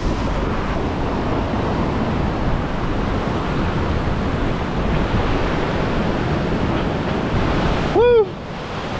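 Heavy surf breaking over a rocky shoreline, a steady rush of whitewater with wind buffeting the microphone. A person's short cry cuts in near the end.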